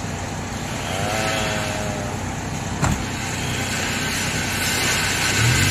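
Suzuki DA62T mini truck's K6A three-cylinder engine running steadily, with a single click about three seconds in and the engine note stepping up near the end.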